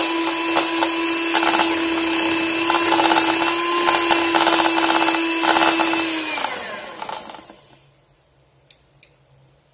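Electric hand mixer whipping cream in a plastic bowl: the motor runs steadily with the beaters clicking against the bowl, then it is switched off about six seconds in and its pitch falls as it winds down. A couple of light clicks follow near the end.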